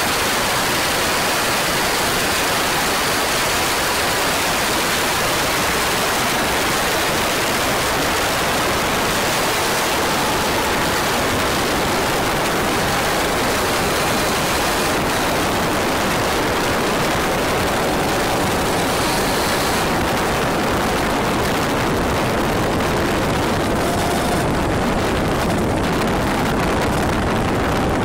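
Steady rush of wind noise on the microphone of a 100cc two-stroke laydown racing kart at speed, with the engine's note faint beneath it. The highest hiss drops away near the end.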